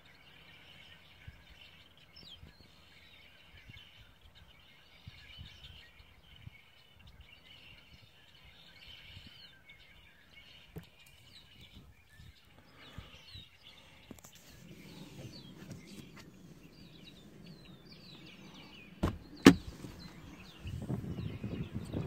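Quiet outdoor ambience with faint, distant bird chirps. Near the end, two sharp clicks half a second apart, then a low rumble.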